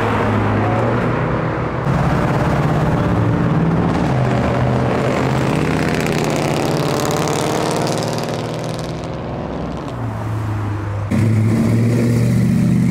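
Several cars driving past one after another, their engines accelerating loudly with the pitch rising and falling. About two-thirds of the way through the sound eases briefly, then a louder, steady low engine note takes over near the end.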